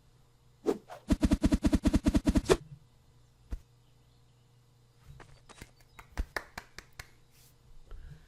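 A quick run of about a dozen sharp knocks, roughly eight a second, starting about a second in and lasting a second and a half. Scattered faint clicks follow later.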